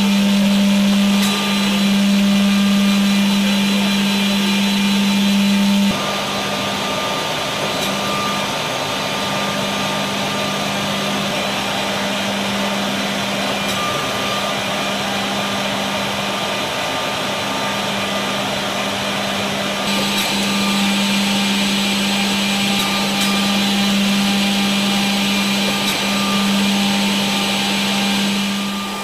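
Biesse Stream B1 edgebanding machine running, a steady mechanical noise with a strong low hum. The hum drops away and the noise gets quieter about six seconds in, then both come back at about twenty seconds.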